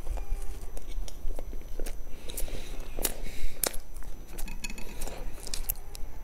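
Close-miked chewing of a mouthful of pastry: wet mouth clicks and smacks, with a few sharper clicks about three seconds in.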